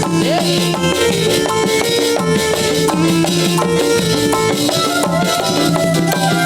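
Live dolalak dance music in an instrumental passage: drums and shaker-like percussion keep a steady beat under a melody of held notes, with no singing.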